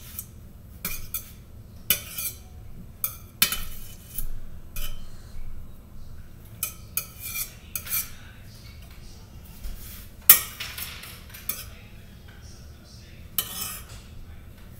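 A metal knife clinking and scraping against a stainless-steel frying pan as butter is wiped off it into the pan: a string of sharp taps and short scrapes, the loudest clink about ten seconds in.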